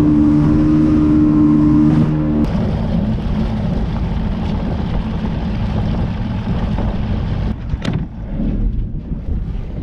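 Boat motor running at steady revs under way, with wind and water rush. The steady engine tone drops out about two and a half seconds in, leaving a rough low rumble of wind and hull noise.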